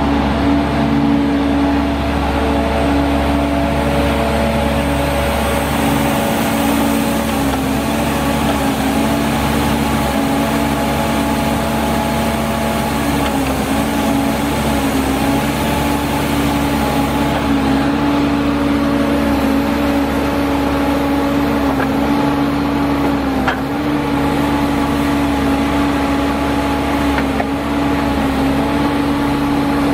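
Caterpillar C7 inline-six diesel engine of a Sandvik DX680 crawler drill rig running steadily at constant speed with an even hum.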